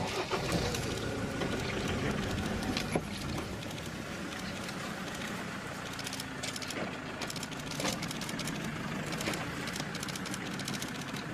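Motor vehicle engine running steadily at low revs, with a few light knocks.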